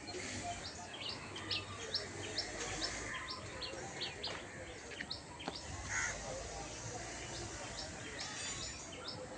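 Small birds chirping: many short, high, quick-falling chirps repeating throughout, over a steady low background murmur.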